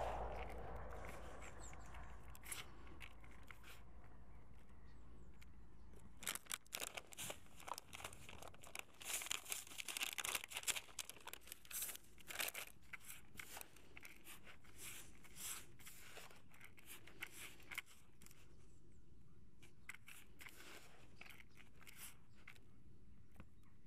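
Hands rubbing and crumbling damp wheat-based feeder groundbait in a plastic bucket: a soft gritty rustle with clusters of small crackles and crunches, thickest through the middle.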